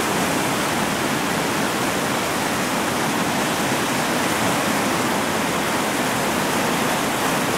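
Whitewater rapid rushing: a steady, even wash of river noise with no single splash standing out.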